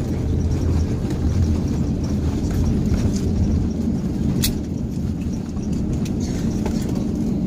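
Steady low rumble of airliner cabin noise, with one sharp click about four and a half seconds in.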